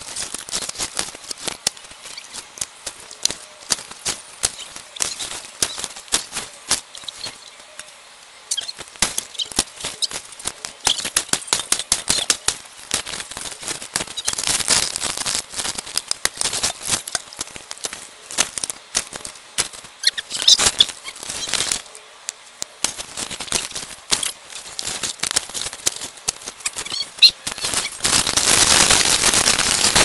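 Dry leaves, twigs and loose soil rustling and crackling as the ground is dug into by hand and with a stick, full of quick snaps and clicks, with a longer, louder rustle near the end.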